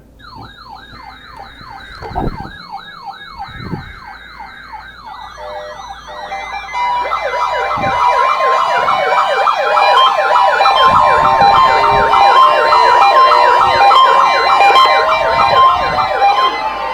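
NOAA Weather Radio receivers sounding their warbling siren alarms for the weekly tone alarm test. One receiver warbles quickly up and down from the start, then more join in about five to seven seconds in. The sound grows louder, with a steady alarm tone underneath the overlapping warbles.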